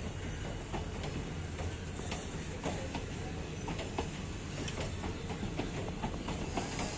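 Indian Railways ICF passenger coaches rolling past as the train pulls out: a steady rumble of wheels on rail, with frequent irregular clicks and knocks from the wheels on the track.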